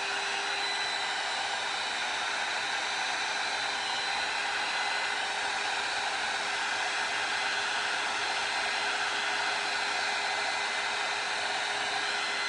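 Handheld electric heat gun running steadily over wet acrylic paint: an even rush of blown air with a steady whine from its fan motor.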